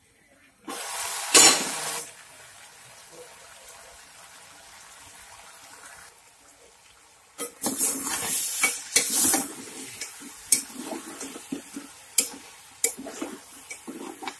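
A loud clatter about a second in, then a faint steady hiss. From about halfway a metal spoon stirs chunks of pork, potato and tomato in an aluminium pot, with sharp clinks and scrapes of the spoon against the pot.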